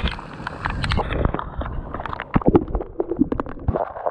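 Irregular tapping and patter of water drops striking a waterproof camera housing and the plastic kayak, over a faint wash of moving water.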